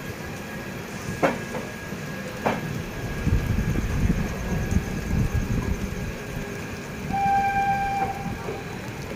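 Passenger train running slowly, with wheels rumbling on the track and two sharp clanks early on. Near the end a locomotive horn sounds one steady note for about a second.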